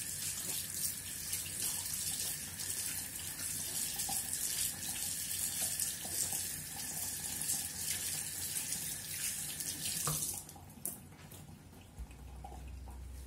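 Kitchen tap running into a sink, a steady hiss of water that is shut off abruptly about ten seconds in, followed by a single click.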